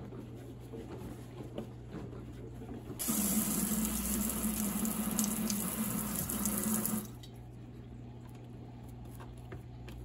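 Kitchen faucet running into a stainless steel sink for about four seconds, a steady rush of water that starts abruptly about three seconds in and cuts off just as suddenly.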